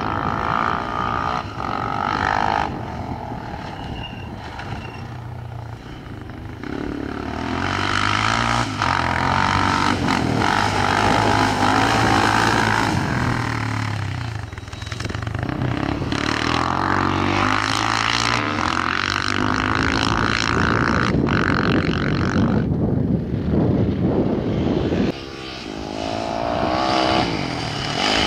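Off-road rally race engines revving hard as vehicles pass one after another. The sound swells and fades several times and drops off suddenly about 25 seconds in.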